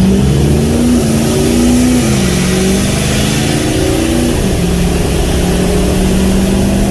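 Ford F-350 pickup's engine under hard acceleration. Its pitch climbs and drops sharply twice, about two seconds in and again past four seconds, as the transmission upshifts, then holds steady. An exhaust leak keeps the turbo from building full boost, the owner says.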